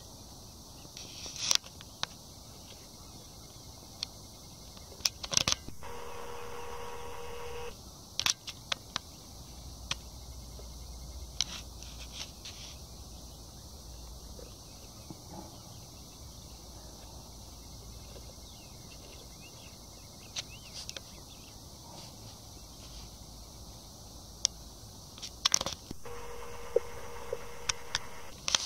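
Faint outdoor background with a steady high hiss and scattered sharp clicks and crackles. Twice, about six seconds in and again near the end, a steady pitched hum holds for about two seconds.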